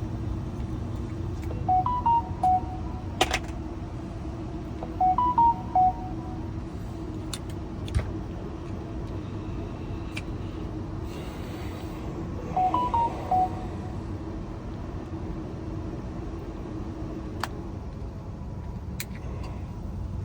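Short electronic beep tunes, three groups of about four quick notes stepping up and down, over a steady low hum, with a few sharp clicks from handling a plastic key fob in between.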